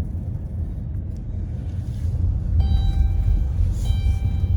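Strong tornado-driven wind buffeting the car and microphone: a gusty low rumble that grows louder about halfway through. A faint steady electronic tone sounds on and off over it.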